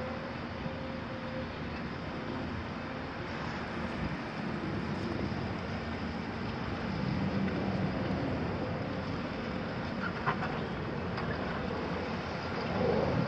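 Volvo crawler excavator's diesel engine running as the machine tracks onto a sand pile, with a short metallic clank about ten seconds in.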